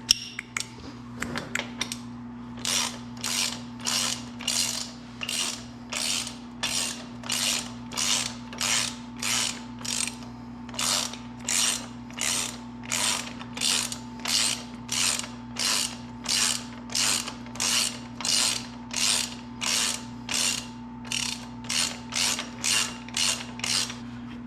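A ratcheting jack being cranked to lift the motorcycle's rear: a long even series of ratcheting strokes, about one and a half a second, after a few sharp clicks at the start. A steady low hum runs underneath.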